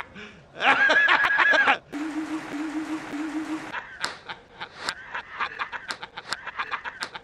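A man laughing loudly and heartily: a loud burst about half a second in, then a quick run of short, repeated laughs through the second half. A steady low tone sounds briefly in the middle.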